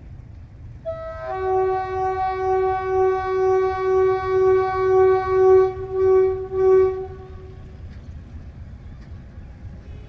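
Diesel locomotive air horn of a Pakistan Railways RGE-24 sounding one long blast, starting about a second in with a brief higher note and then holding a steady pitch that swells and dips about twice a second, fading out about seven seconds in. A low rumble of the approaching train runs underneath.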